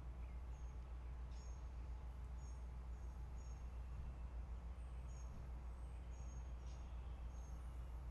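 Backyard ambience: a steady low rumble with short, high bird chirps repeating in runs about every half second.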